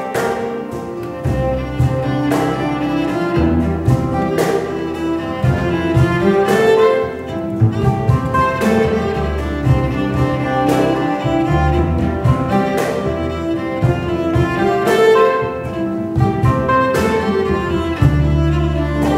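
Live instrumental folk-style piece for a small ensemble: a fiddle carries the melody over a baroque triple harp and guitar, with a double bass and a hand drum beating steady strokes throughout.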